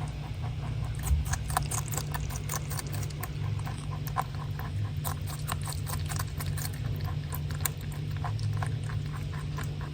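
Rabbit munching food: a quick, irregular run of small crunches, over a steady low hum.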